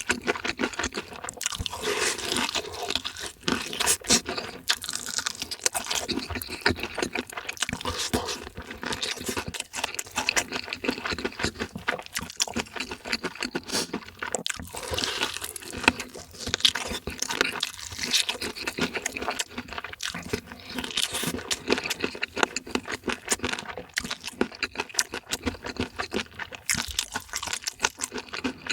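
Close-miked eating: fried chicken food being bitten and chewed, with dense, irregular crunching and wet mouth sounds throughout.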